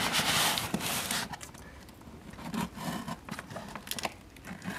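Packing tape on a cardboard box being cut and pulled loose: a rasping tear for about the first second, then lighter scrapes and taps as the cardboard is handled.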